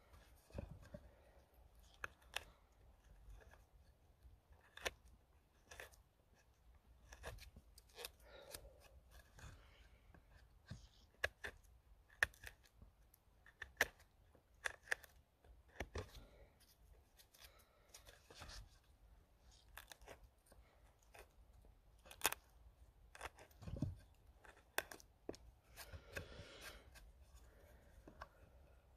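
Knife shaving wood: quiet, irregular short slicing and scraping strokes as curls are cut from a peg on the end of a branch.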